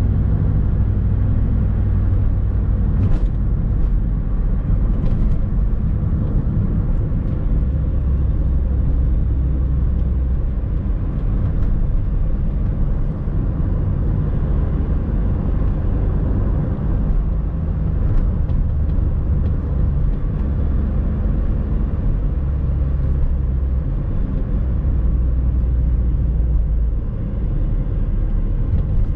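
A 1998 Suzuki Swift driving, heard from inside the cabin: a steady deep engine drone and road rumble, its low hum changing pitch a few times. A few light clicks come a few seconds in.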